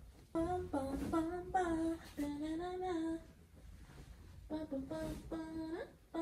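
A woman singing a tune unaccompanied, in two phrases with a pause of about a second between them.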